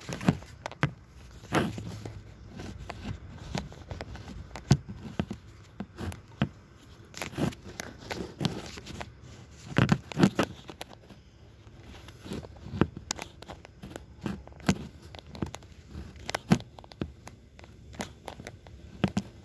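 Irregular handling noise: hands rubbing, tapping and knocking close to the phone's microphone, with sharp clicks and thumps every second or so over a low rustle.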